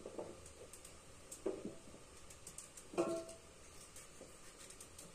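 Faint knife work on raw pumpkin: light cutting clicks and scrapes as chunks are sliced. Two short pitched sounds stand out, about a second and a half in and again at three seconds.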